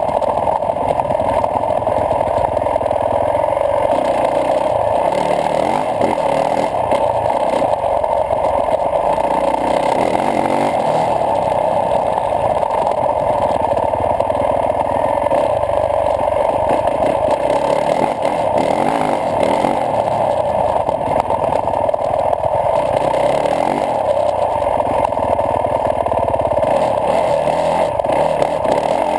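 Yamaha YZ450F motocross bike's single-cylinder four-stroke engine running as it is ridden along a dirt trail, the engine note rising and falling with the throttle.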